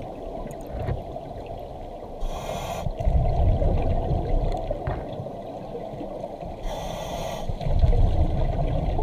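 A diver breathing underwater through a vintage double-hose scuba regulator: twice, about two and seven seconds in, a short hiss of air followed by a low bubbling rumble of exhaled air.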